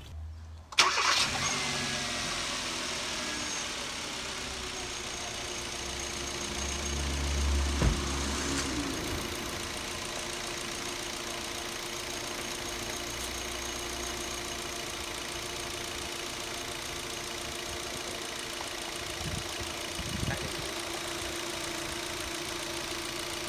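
Kia Cerato (K3) four-cylinder DOHC 16-valve petrol engine starting about a second in, then idling steadily. The cooling system has just been refilled with fresh coolant.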